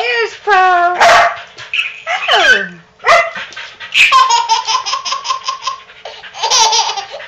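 A baby laughing hard in bursts, including a long run of quick rhythmic laughs, while a dog barks a few sharp times.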